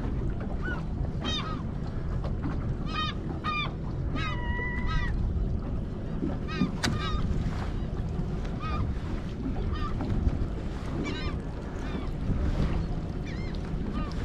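Seabirds calling over and over in short squawking series above a steady low rumble of wind and water around the boat. About four seconds in there is a brief steady tone, and near seven seconds a single sharp click.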